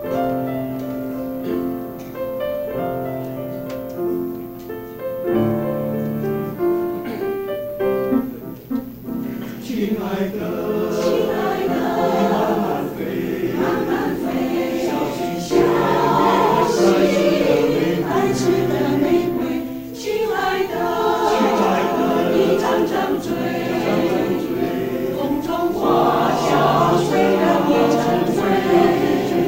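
A mixed choir of men's and women's voices singing in parts. It is soft at first and fuller from about ten seconds in.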